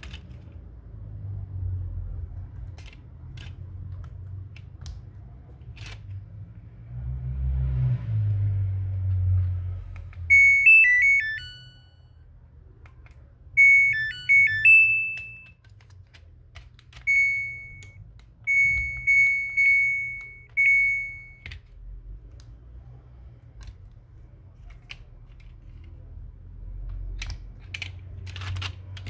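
Buzzer on a Samsung washing machine control board. It plays a short electronic jingle of rising and falling notes twice, about a third of the way in, then a string of single high key beeps as its buttons are pressed. Soft clicks and handling noise come in between.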